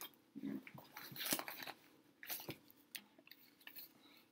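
Paper and a cardboard gum packet rustling and crinkling as they are handled, with a few sharper clicks.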